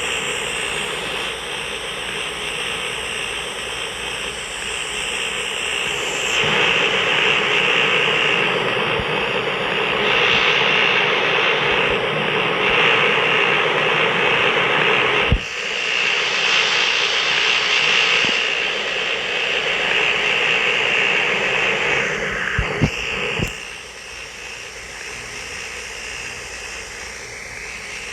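2021 York central air conditioner running with a steady rush of air, which grows louder about six seconds in. Near the end there are a few sharp clicks, and the sound drops to a lower level.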